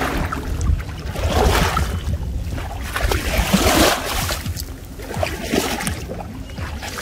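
Muddy pond water sloshing and swirling around the legs of someone wading through it, coming in uneven surges with each stride.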